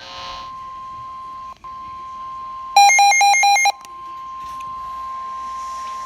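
NOAA Weather Radio warning alert tone: a steady single tone of about 1050 Hz heralding a new warning. About three seconds in, a loud, rapidly warbling electronic alarm sounds for about a second over it.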